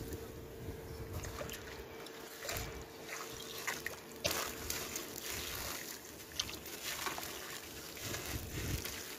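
Hands sloshing and crumbling a soaked, bowl-shaped sand chunk in a plastic tub of muddy water: irregular gritty crackles and splashes, with water trickling and dripping off the squeezed pieces.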